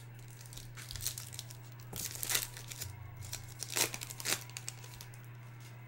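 Trading card pack wrapper crinkling and tearing open in several short rustles, over a low steady hum.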